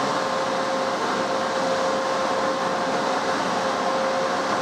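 Cooling fans of a 2 kW LDMOS FM broadcast amplifier running: a steady rush of air with a faint steady whine.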